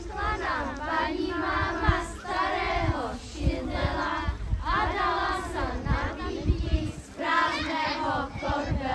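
A group of children singing together as a small choir, in phrases with short breaths between them. A few low thumps come through under the singing.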